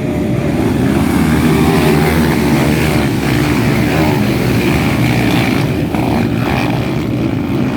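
Several 200 cc motocross motorcycles running on the track, their engines blending into a loud, steady drone.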